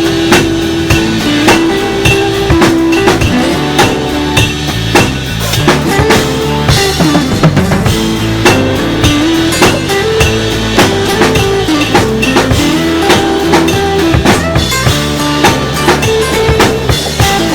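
Drum kit played along to the instrumental break of a pop song's backing track, with regular kick and snare hits and cymbals over a bass line and a held, stepping melody.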